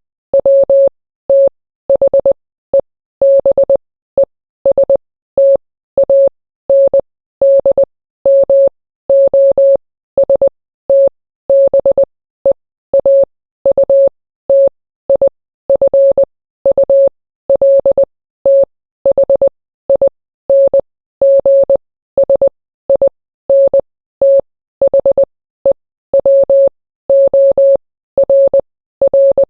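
Morse code sent as a steady mid-pitched beep, keyed on and off in short dots and longer dashes with silent gaps between letters and words.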